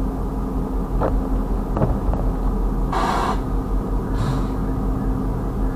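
Steady low rumble of an idling engine, with two short hissing bursts about three and four seconds in.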